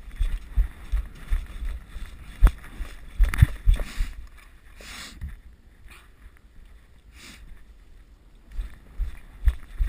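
Irregular low thumps and rustling of a player moving with gear, picked up by a body-worn camera's microphone. There is one sharp click about two and a half seconds in, and a few short hissing rustles in the middle.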